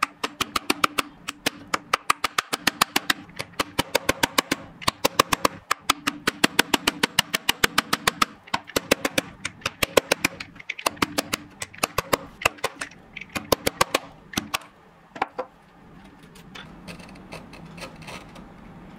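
Wood chisel being struck in quick light taps, chopping down into the waste of a dovetail joint, several blows a second. After about fifteen seconds the taps stop and give way to quieter scraping as the chisel pares the wood by hand.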